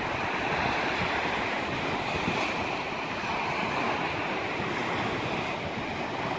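Small waves breaking and washing up a sandy beach, a steady rush of surf, with some wind on the microphone.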